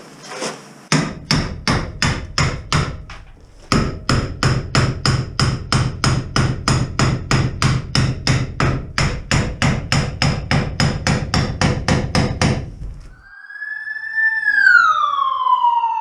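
Rapid metal hammer blows, about three to four a second, driving a steel bar in to pry off a stuck part, with one short pause. Near the end a pitched whine falls steadily in pitch.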